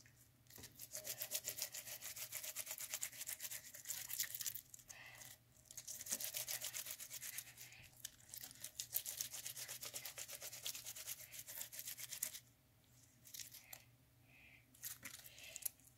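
Glitter slime being squeezed and kneaded in the hands, giving rapid wet clicking and popping in long stretches with short pauses. It stops about twelve seconds in, leaving only a few faint squishes.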